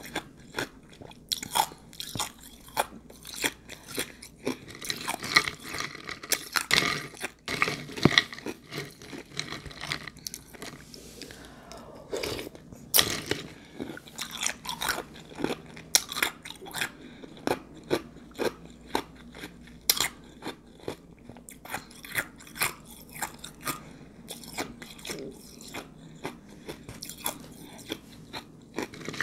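Close-up mouth sounds of someone chewing and crunching ice soaked in juice: a steady run of irregular crisp crunches and crackles, several a second.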